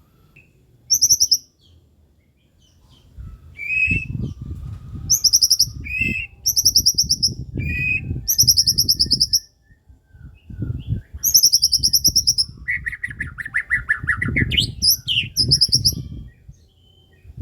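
White-rumped shama (murai batu) singing in full, energetic song: rapid buzzing trills and whistled phrases repeated in quick succession, loaded with mimicked 'isian' phrases, with a short pause about halfway through.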